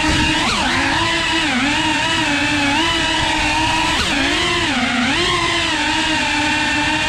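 FPV quadcopter's electric motors and propellers whining steadily. The pitch dips sharply and recovers about half a second in, again near one and a half seconds, and twice more around four to five seconds, as the throttle changes.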